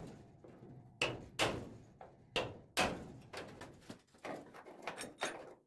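About ten hammer blows on a tool held against the sheet-steel trunk weather strip gutter of a 1964 Chevrolet Impala, braced from below by a porta power. The blows work rear-collision damage back into place. They come a few per second at an uneven pace, and the later ones are lighter.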